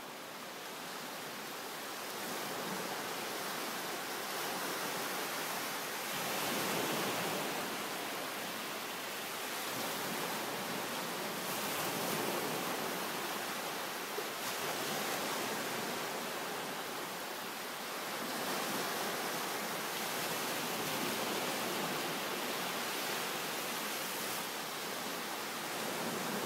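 Small waves rolling gently onto a sandy beach: a steady wash of surf that swells a little about every five seconds as each wave comes in.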